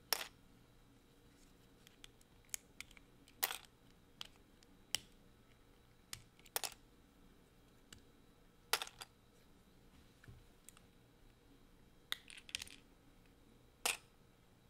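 LEGO plastic bricks being pulled apart and handled, giving sharp plastic clicks and snaps at irregular intervals, about a dozen in all, with a quick run of several close together near the end.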